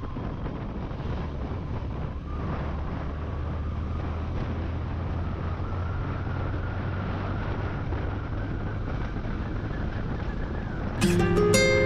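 A vehicle engine running steadily with a low hum, with wind noise on the microphone. Music comes in near the end.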